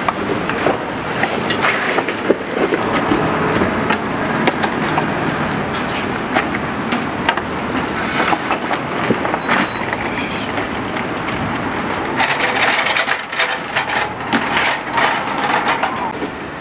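Wooden food-stall cart on a hand pallet jack rolling over paving stones: a constant clatter of wheels and creaking wood, busier in the last few seconds.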